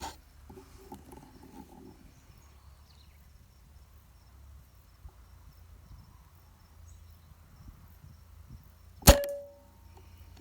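A single shot from a CBC B57 4.5 mm PCP air rifle, a sharp crack about nine seconds in followed by a brief ring.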